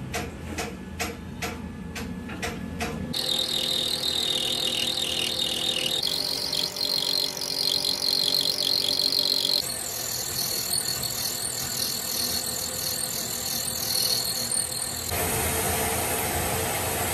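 Metal lathe machining a bolt. For about three seconds it clicks regularly, roughly three times a second. Then come stretches of cutting noise with a high whine, each changing abruptly to the next.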